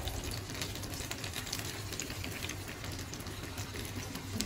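Flour-battered chicken pieces deep-frying in hot oil: a steady sizzle full of quick crackles and pops.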